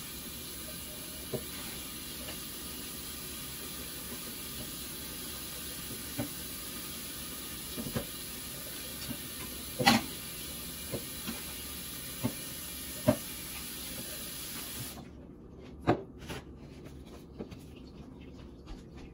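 Water running from a kitchen tap in a steady hiss, with a few light clinks and knocks of glass or dishware; the tap shuts off suddenly about fifteen seconds in, and a few more knocks follow.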